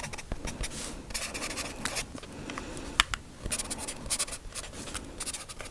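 Pen writing on paper close to the microphone: scratchy strokes with scattered small clicks, one sharper click about three seconds in.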